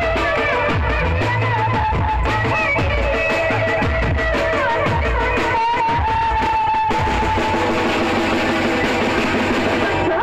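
Live Indian band music: a wavering melody line over a drum kit, played loud without a break.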